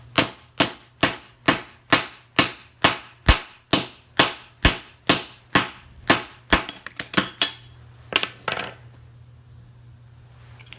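Small hammer striking the welded seams of a heavy-duty transformer's steel core, a steady run of sharp metal-on-metal blows about two a second, then a few lighter knocks before they stop. The blows are breaking the welds so the steel pieces fall off the copper windings.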